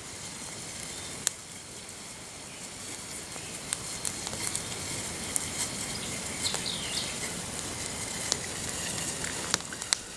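Wood campfire burning under a coffee-can pot: a steady hiss with scattered sharp crackles and pops.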